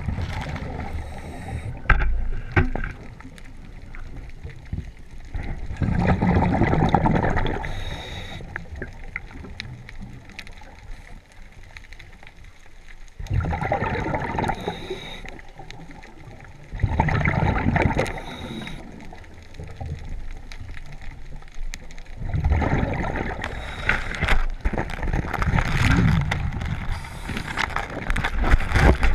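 Scuba diver breathing through a regulator underwater: bursts of rushing, gurgling exhaust bubbles every few seconds, each lasting one to two seconds, with quieter stretches between breaths.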